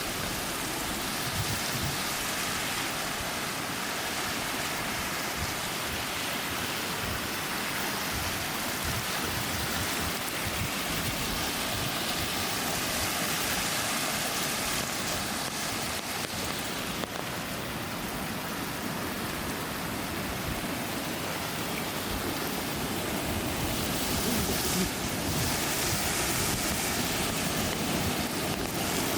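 Cascading water rushing steadily, a constant even roar with no pauses.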